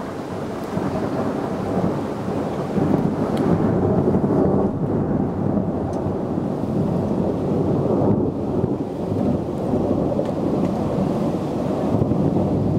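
Long rolling thunder, a deep continuous rumble that swells about two to four seconds in and keeps going without a break.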